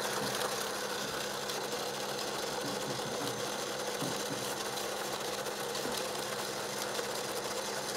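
Small electric motor of an egg-spinning decorating device whirring steadily as it turns an egg.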